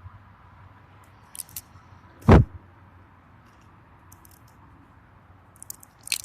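Handling of a small plastic slime capsule and its wrapper: a few light crinkles and clicks, and one loud thump a little over two seconds in.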